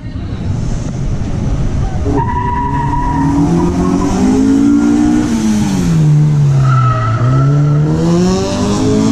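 A car being driven hard around a cone slalom course. Its engine revs up and down, the pitch dropping to a low point about seven seconds in and then climbing again, with short tyre squeals through the turns.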